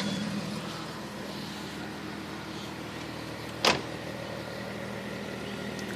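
1997 Ford Falcon EL engine idling steadily a few minutes after a cold start on a freezing morning, with one sharp knock a little over halfway through.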